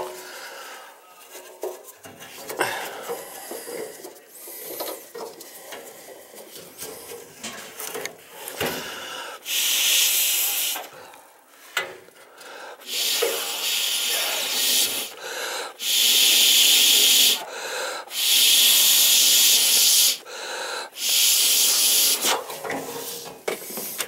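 Short blasts of compressed air from an air hose, blowing out the pilot and burner area of an old gas furnace whose pilot keeps going out. There are five loud hissing blasts of a second or two each, starting about ten seconds in, after some faint rustling and scraping.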